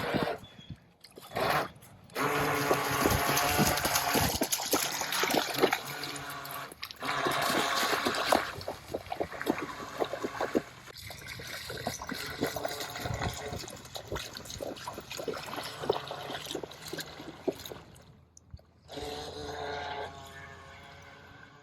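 Water splashing and trickling, with a steady pitched hum over it at times.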